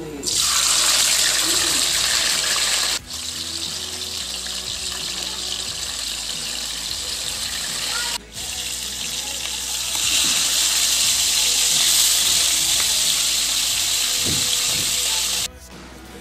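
Two whole fish frying in hot oil in a wok: loud, steady sizzling that starts as the fish go into the oil, dropping out briefly twice and stopping shortly before the end.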